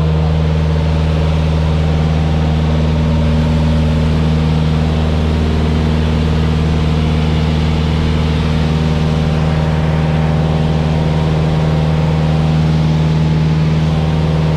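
Light aircraft's engine and propeller running steadily at a constant pitch, heard from inside the cabin.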